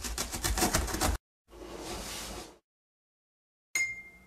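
Cartoon sound effects: a cardboard box rattling rapidly for about a second as it shakes, a short rushing swish as it bursts open, then one bright ding that rings out near the end as the character winks.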